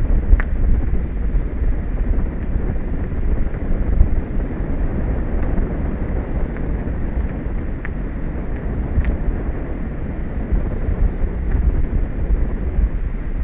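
Wind buffeting an outdoor microphone: a steady low rumble that flickers in level, with a few faint short ticks.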